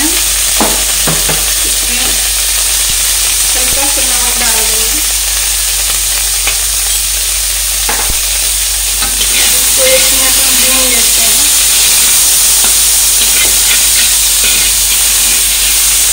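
Boiled potato and paneer cubes sizzling steadily as they fry in oil in a kadhai, with a few sharp clicks and scrapes of a metal spatula against the pan.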